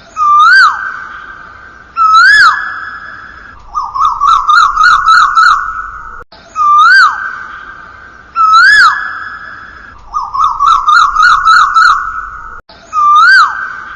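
Electronic whistle-like tones in a repeating loop: single rising-and-falling swoops alternate with quick warbling trills, the same pattern coming round every few seconds.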